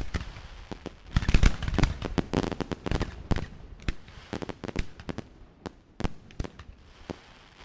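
Aerial fireworks display: shells bursting one after another with sharp bangs and crackling, densest in the first half and thinning to scattered single reports toward the end.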